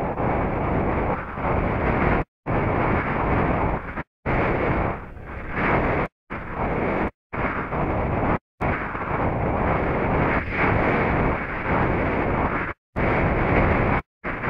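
Airflow rushing over the microphone of a camera mounted on a hang glider in flight, a loud, steady wind rush that cuts off into brief silences about seven times.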